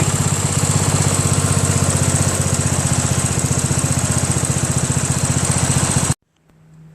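Craftsman LT1000 lawn tractor's 15.5 hp Briggs & Stratton engine running steadily with an even pulse, which the owner takes as a sign the fuel-feed problem is cured by a shortened fuel line. The sound cuts off suddenly about six seconds in.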